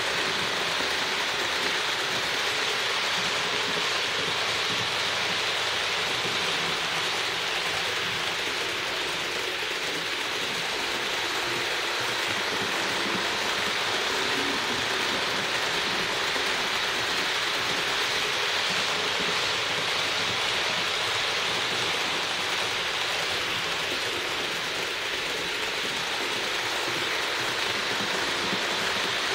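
HO-scale Roco ÖBB 1044 model locomotive running around the layout: its small electric motor and gearing run steadily, with the wheels rolling on the track.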